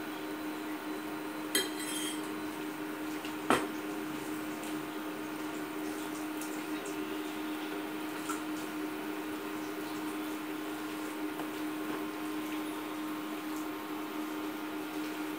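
Steady electrical hum of an induction cooktop heating a pan of oil, under the soft rustle of sliced onions being mixed by hand with gram flour and spices. Two sharp clinks of a steel spoon against a steel bowl stand out in the first few seconds.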